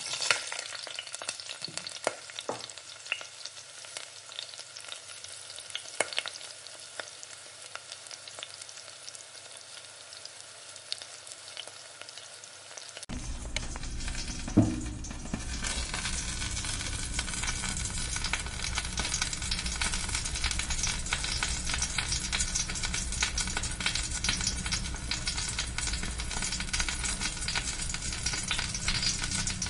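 Hot oil in a frying pan, at first a quiet hiss with scattered crackles. About halfway through the sizzling turns suddenly much louder and denser, with a thump, as marinated chicken tikka pieces fry in the oil and are stirred with a metal spatula.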